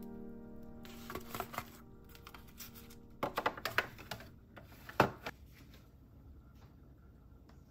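Light plastic clicks and knocks as a clear plastic storage case holding packs of natto and tofu is handled and slid along a refrigerator shelf, with one sharper knock about five seconds in.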